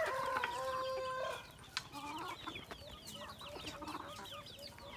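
A backyard flock of chickens clucking and calling, many short quick calls overlapping. One long, held call stands out in the first second and a half.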